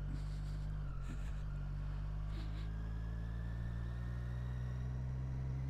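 Triumph Street Triple 765 R's three-cylinder engine running steadily, its pitch dipping slightly about a second in.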